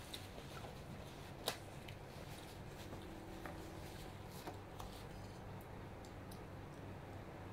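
Quiet eating and table-handling sounds: faint clicks and taps of bamboo skewers and plates, with one sharper click about a second and a half in, over a low steady hum.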